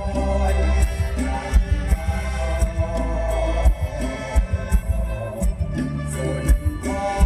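Live Isan mor lam band music played loud through a stage PA, with heavy bass, regular drum hits and a melodic line over them.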